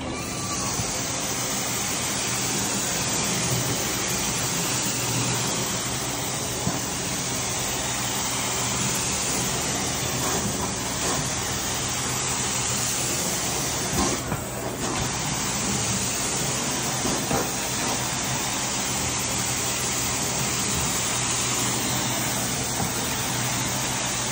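Carpet-cleaning extraction wand drawn across carpet: a steady hiss of vacuum suction and water spray over the machine's low hum. The hiss dips for a moment about halfway through.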